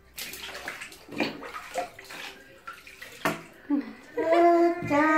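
Water splashing and sloshing in a plastic baby bathtub as a baby is washed by hand. About four seconds in, a voice starts singing a slow melody, which becomes the loudest sound.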